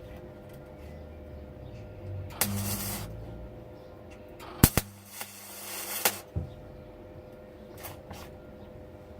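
Wire-feed (MIG) welder laying tack welds on thin sheet steel: two short bursts of arc crackle with a low hum from the welder, the second about a second and a half long with sharp clicks as it starts.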